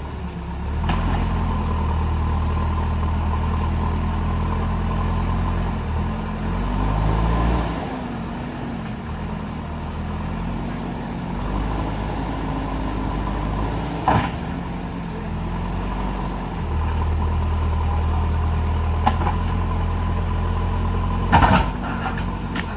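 Diesel engine of a JCB backhoe loader running, its speed dipping and rising a few times, with a few sharp knocks about halfway through and near the end.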